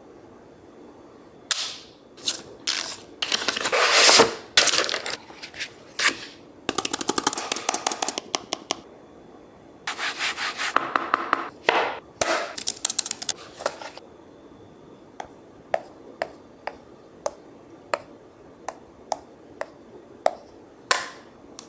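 Unboxing handling noises from a tablet's cardboard and plastic packaging: rubbing, sliding and rustling, with two stretches of fast fine rattling. These give way to a string of light clicks about half a second apart.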